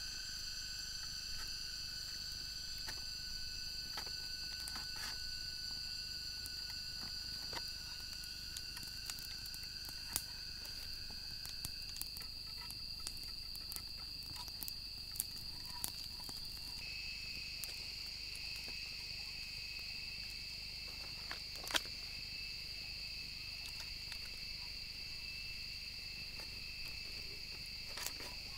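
Steady chorus of forest insects, several high continuous tones that shift partway through, with scattered light clicks and taps from bamboo being worked by hand with a small blade.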